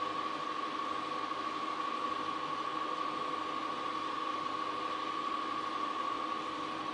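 Steady background hiss with a constant high whine and fainter lower hum tones, unchanging throughout: room and recording noise with no distinct events.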